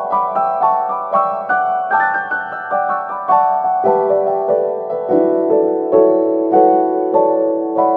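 Background piano music: a slow melody over held chords, about two to three notes a second.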